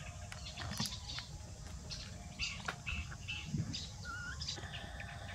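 Small birds chirping, many short high chirps with a warbling note a little after four seconds, over a few light clicks.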